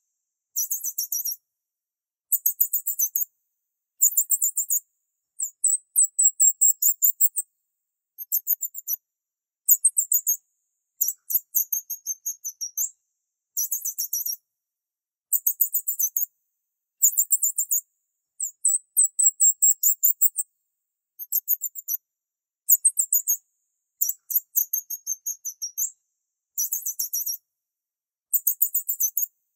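Very high-pitched, rapid chirping trills in short bursts of about a second, repeated over and over with clean silence between them.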